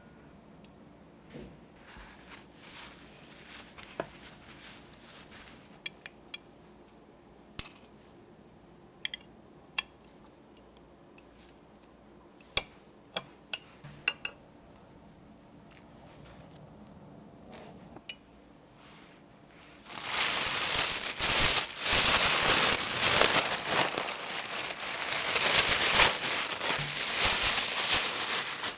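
Scattered clinks of a knife blade and fish pieces against a ceramic plate as raw mackerel chunks go into a plastic bag of coating powder. About two-thirds through, loud, continuous crinkling of the plastic bag being shaken to dredge the fish takes over.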